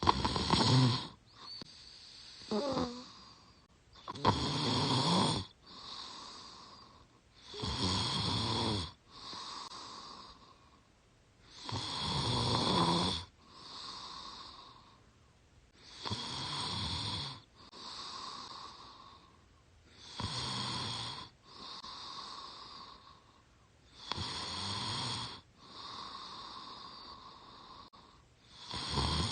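A young woman snoring through her open mouth in her sleep. A rough snore comes about every four seconds, each followed by a softer breath.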